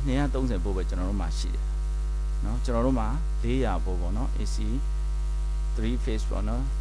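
Loud steady 50 Hz mains hum with its overtones, an electrical hum picked up in the recording, under a man talking in Burmese in short phrases.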